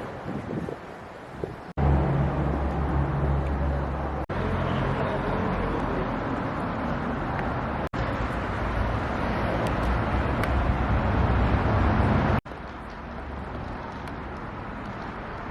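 City street ambience with road traffic: a low, steady engine hum stands out in one stretch early on, then a general outdoor wash. The sound breaks off and changes abruptly four times.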